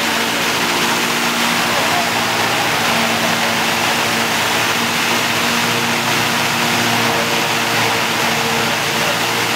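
Sugar mill machinery running, a loud, steady wash of noise with a constant hum under it and no let-up.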